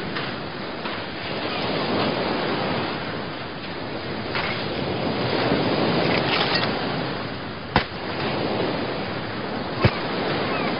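Ocean surf breaking steadily on a sandy beach. Near the end, two sharp thuds a couple of seconds apart: American footballs landing in the sand.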